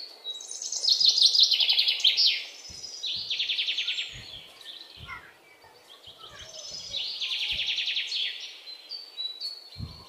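A small bird singing loudly nearby: several fast trilled phrases, each a second or two long, a few seconds apart. A few faint knocks sound under it.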